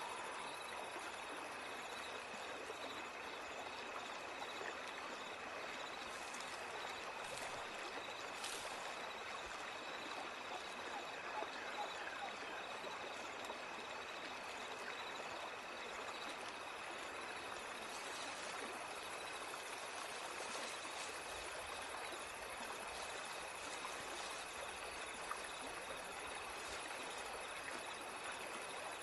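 Steady running-water ambience like a babbling stream: an even, constant rush of water, with a faint steady high tone running above it.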